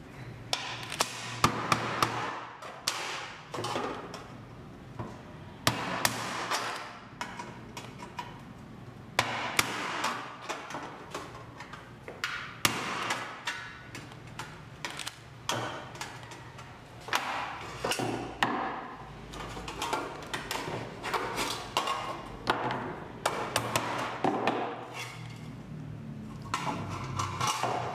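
A hammer striking a pointed punch into a thin corrugated galvanized steel sheet: a long run of sharp metallic taps in uneven clusters, punching through the metal to start the circular cut-out.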